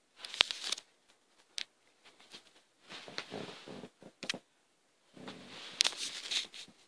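Scratchy rustling in several short bursts, loudest near the start and again from about five seconds in: handling noise from a phone's microphone brushing against a cat's fur and the bedding.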